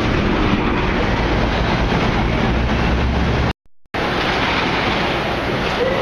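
Steady city street noise, a wash of traffic with wind rumbling on the microphone. It drops out completely for a moment about three and a half seconds in, then carries on as before.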